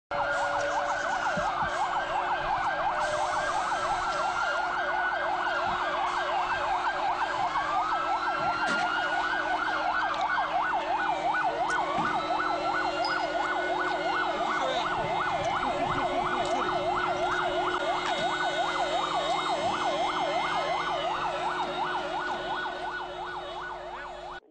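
Several emergency-vehicle sirens sounding at once: fast yelping sirens overlapping slower rising-and-falling wails, fading out near the end.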